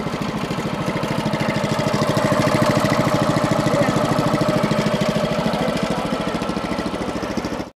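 Small 7-horsepower single-cylinder petrol engine of a homemade mini tractor running with an even, rapid beat as the tractor is driven. The sound cuts off suddenly near the end.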